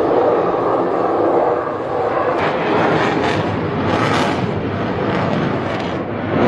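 Jet aircraft passing overhead: a loud, steady engine rush with several sharper surges in the middle.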